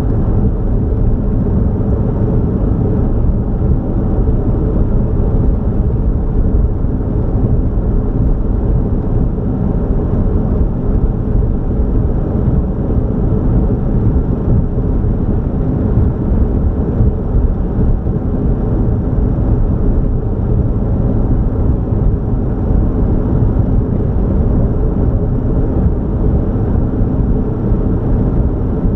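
Steady low rumble of a car driving, with engine, tyre and road noise running evenly and no change in pace.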